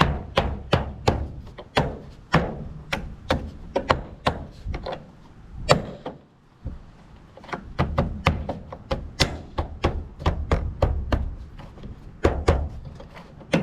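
Plastic roof cladding of a Honda Element being tapped down onto the roof rail, a quick run of sharp knocks, about two or three a second with a short pause about halfway, seating its retaining clips into place.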